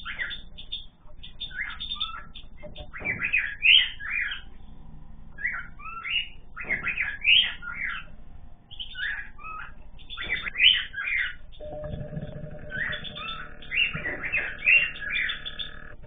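Mixed cage birds in an aviary chirping, in clusters of short, quick call notes with brief pauses between them.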